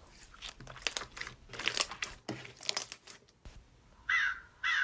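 Crinkling, rustling handling noise, then a crow cawing twice near the end, harsh loud calls about half a second apart.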